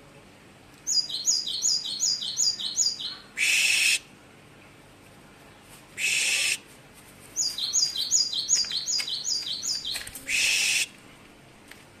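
Caged cinereous tit (gelatik batu) singing two bouts of a repeated two-note phrase, a high note dropping to a lower one about three times a second, each bout two to three seconds long. Three short harsh hissing bursts of about half a second come between and after the bouts.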